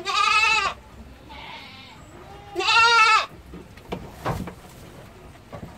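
Young goat kids bleating: two loud bleats about two and a half seconds apart, the second wavering, with a fainter, higher bleat between them. A couple of short knocks follow about four seconds in.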